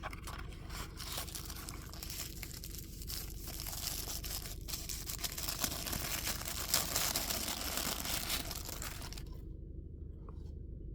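Paper wrapping crinkling and rustling as a pocketknife is unwrapped from it, stopping about nine seconds in, followed by a couple of faint clicks.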